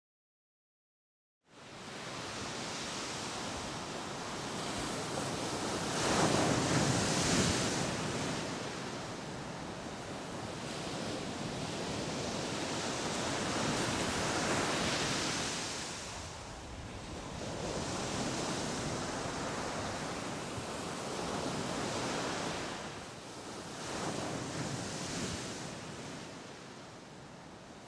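Sea surf breaking and washing up a sandy beach. It starts after about a second and a half of silence, then swells and fades every few seconds as waves come in, loudest about six seconds in.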